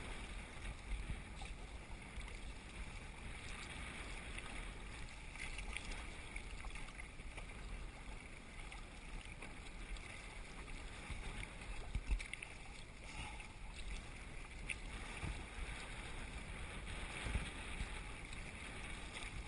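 Choppy water sloshing and lapping against a sea kayak's hull as it is paddled, with the paddle blades dipping in, over low wind rumble on the microphone. A few sharper splashes or knocks stand out, the loudest about twelve seconds in.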